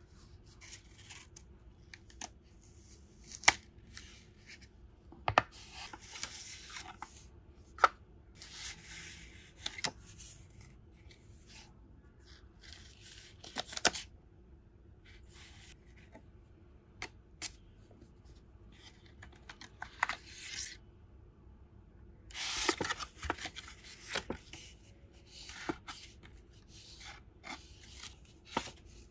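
Paper being handled: a kraft paper envelope opened and its sticker sheets and paper cards slid out and leafed through, rustling and tearing in irregular stretches with several sharp clicks along the way.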